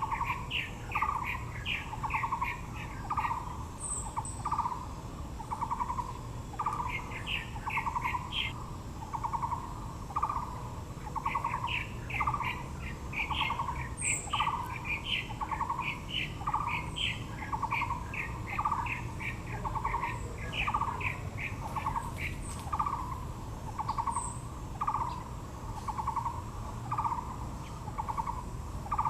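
Wild birds calling. One bird repeats a low, pulsed note steadily, a bit faster than once a second, while quicker, higher chirps come in short runs over it.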